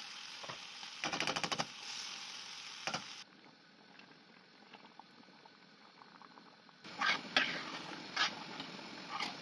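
Cherry tomatoes and soft white cheese sizzling in a frying pan, with a metal spoon clicking and scraping against the pan about a second in. For a few seconds in the middle only the faint hiss of a pot of spaghetti boiling is heard, then the creamy sauce sizzles again with more stirring clicks.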